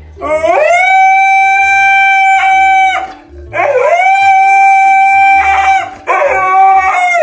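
Husky howling: three long howls, each sliding up at the start and then held on one steady pitch, the first lasting about three seconds.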